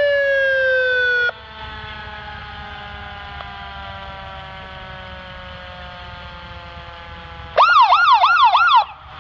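Emergency vehicle sirens. A loud siren tone slides slowly down in pitch and cuts off suddenly about a second in, and fainter siren tones go on sliding down beneath. Near the end comes a loud burst of rapid rising-and-falling yelp, about three cycles a second, lasting just over a second.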